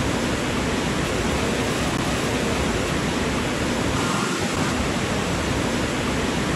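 Steady rush of running water at a water park: water streaming down a water slide and splashing into the pool below.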